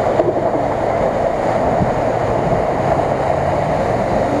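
Toyota Tundra pickup's engine running steadily under load as the truck ploughs through deep mud and water, with the sound of churning mud and splashing.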